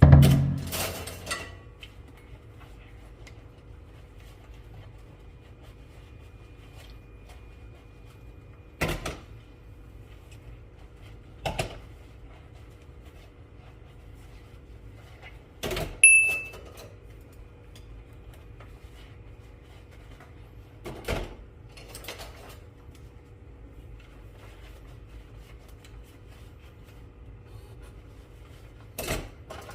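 Scattered knocks and clicks of kitchen appliance doors and lids being opened and shut, about seven in all, with a short electronic beep a little past halfway. A steady hum runs underneath.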